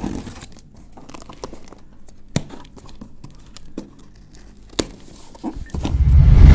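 Razor blade slitting the packing tape on a cardboard parcel: faint scattered crackles of tape and card with a couple of sharper ticks. Near the end, a loud rubbing and scraping as the box is shifted and handled.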